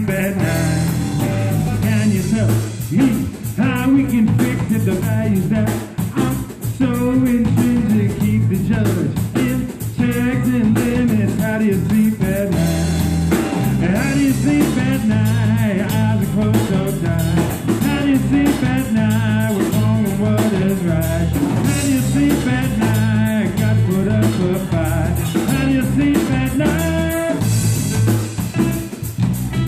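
Live band playing a song: a semi-hollow-body electric guitar over electric bass and a drum kit keeping a steady beat.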